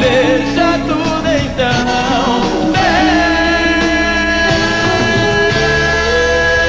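Live gospel rock band playing, with drums and bass under a wavering lead line; about three seconds in the band settles into a long held chord.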